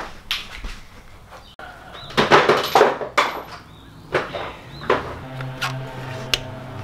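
Clanks, knocks and rattles of hand tools and metal parts being worked in a car's engine bay, loudest in a burst of clatter about two to three seconds in. A steady low hum starts about five seconds in.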